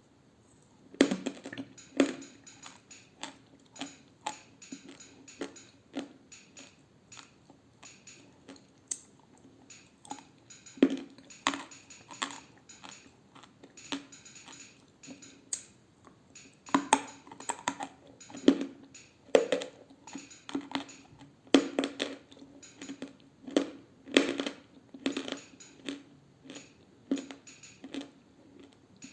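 Close-miked crunching of dry edible clay (Turkestan Classic variety) being bitten and chewed. It is an irregular string of sharp, crisp crunches, about one or two a second, starting about a second in.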